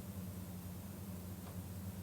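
Steady low hum with faint hiss, the room and recording background heard in the pause between a sleeping person's breaths.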